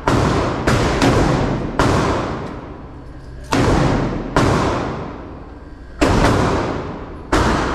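Gunshots from a .357 Magnum handgun and other guns on an indoor shooting range, about seven irregularly spaced blasts, two of them in quick succession, each ringing out with a long echo off the concrete walls.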